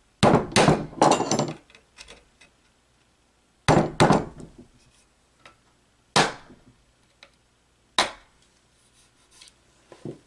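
Hammer striking a punch against an electric motor's metal end bell and frame, punching alignment marks on both ends before disassembly. A quick run of about five blows near the start, two more about four seconds in, then single blows about six and eight seconds in, each with a short metallic ring.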